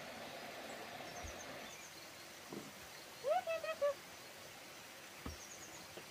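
Outdoor ambience with faint, high bird chirps, and about three seconds in a short animal call of four quick pitched notes, the first rising.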